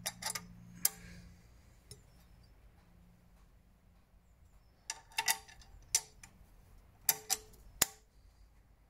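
Sharp, separate metal clicks and clinks from hand tools and a metal bracket being handled: three in the first second, then a quiet stretch, then a run of them from about five to eight seconds in.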